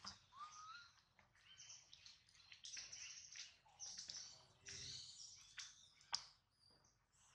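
Faint, high-pitched animal chirps and squeaks, many short calls in a row, with one rising call in the first second and a sharp click about six seconds in.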